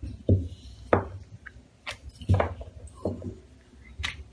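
Wooden rolling pin working dough on a stone rolling board, with about four dull knocks a second or so apart as the pin rolls and lands, and a few lighter clicks.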